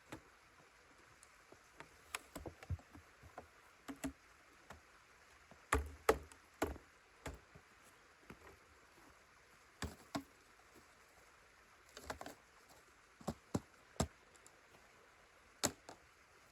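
Irregular light knocks and clicks, about fifteen scattered through, over a faint steady hiss.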